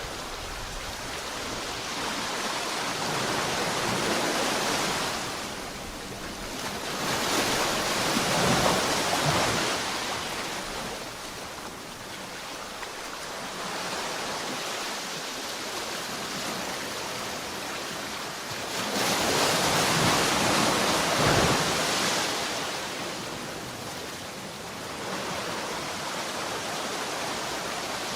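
Sea waves washing onto the shore: a steady hiss of surf that swells into two louder breaking waves, about a quarter of the way in and again about two thirds of the way in, ebbing between them.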